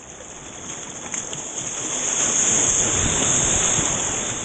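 A small breaking wave surging in through shallow water, its whitewash rushing close at the microphone. It builds to its loudest about two seconds in and then eases.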